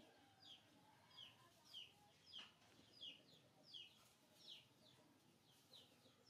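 A bird calling steadily, a short high chirp that slides downward, repeated about three times every two seconds.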